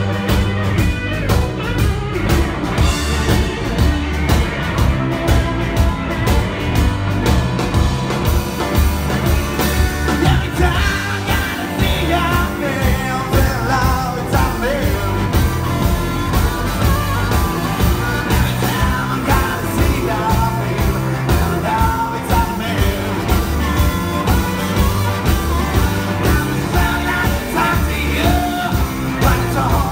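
Live blues-rock band playing amplified guitars over a steady beat, with a man singing.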